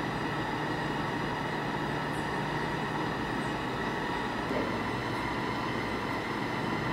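Steady background hum with a hiss, unbroken and even, with no distinct knocks or clicks.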